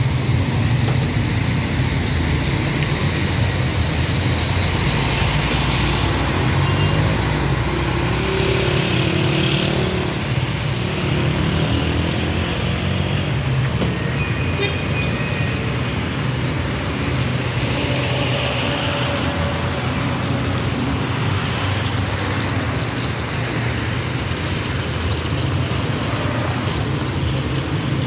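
Steady hum of street traffic passing nearby.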